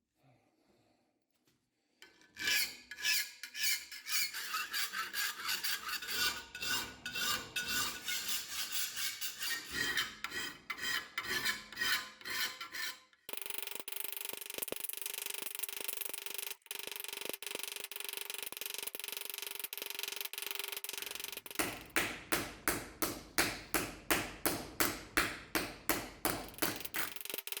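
Metal being hand-filed in rasping back-and-forth strokes, starting about two seconds in. There is a steadier stretch of continuous rasping in the middle, and quicker regular strokes at about three a second near the end.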